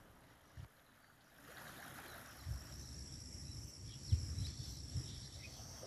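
Faint outdoor field ambience: a steady high insect buzz, like crickets, that comes in about two seconds in, over a light hiss, with a few short low thumps.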